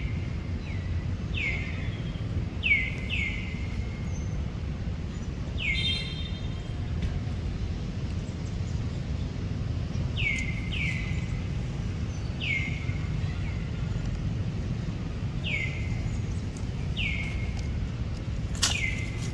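A bird calling again and again: about a dozen short calls, each sliding down in pitch, some in quick pairs, over a steady low background rumble.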